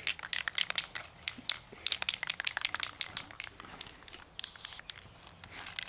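Irregular crinkling and crackling handling noise: many quick, uneven clicks and rustles.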